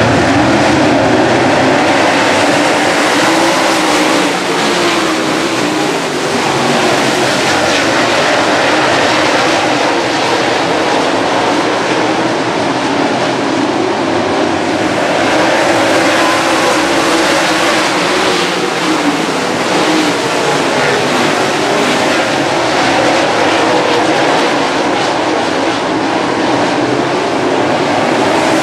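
A field of oval-track race cars running together at speed, several engines at once, loud and steady, their notes rising and falling as cars go past.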